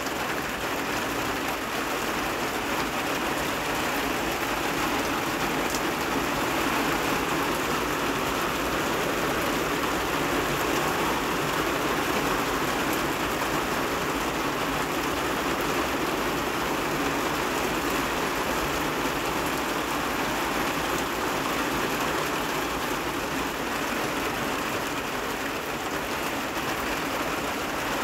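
Steady rain falling, an even hiss that holds without pause or change.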